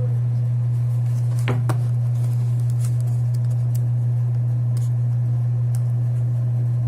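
A steady low electrical hum under a few small clicks and taps of objects being handled, the sharpest pair about one and a half seconds in.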